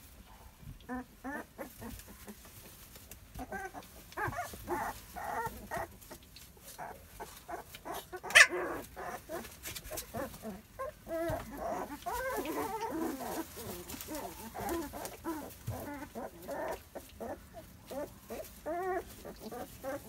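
Young puppies whimpering and squeaking in many short, high calls as they play together. About eight seconds in there is one sudden sharp sound, much louder than the rest.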